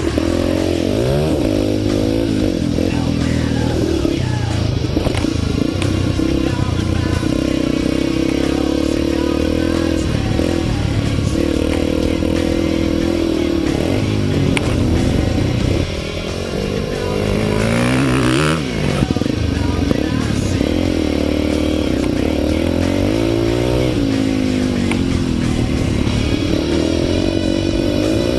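Yamaha TTR 230's single-cylinder four-stroke engine being ridden hard on a motocross track, the throttle opened and shut again and again so the pitch keeps rising and falling. About sixteen seconds in the engine briefly goes quieter, then revs up sharply.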